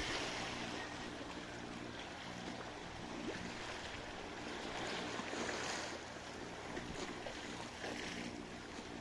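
Small waves of a calm sea lapping against shoreline rocks, with a faint steady low hum underneath.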